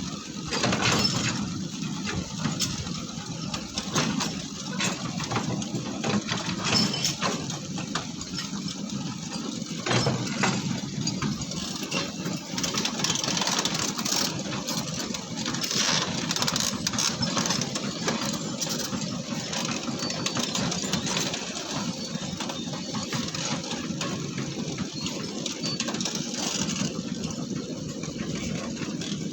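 Heavy diesel engine of an excavator running steadily, with scattered knocks and clatter throughout.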